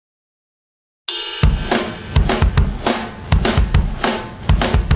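Silence, then about a second in background music starts abruptly, led by a drum kit with a steady, loud beat.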